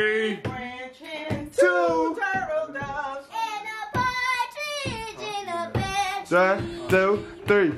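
A family group singing together, with a child's voice the most prominent.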